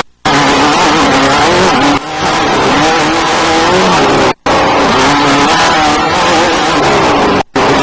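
Off-road desert race vehicle engines running hard, their pitch rising and falling as they rev. Several passes follow one another, each ending in an abrupt brief silence, about two, four and a half, and seven and a half seconds in.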